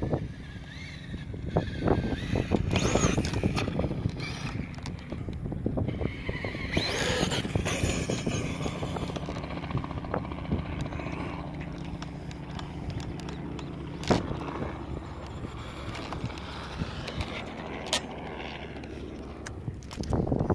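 Brushless electric motor of a 2WD Traxxas Slash RC truck on sand paddle tyres whining up and down in pitch as it accelerates across sand, over a steady low rumble of wind on the microphone.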